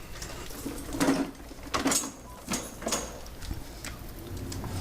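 A few scattered light knocks and clicks over a low steady background hum, like objects being handled or moved.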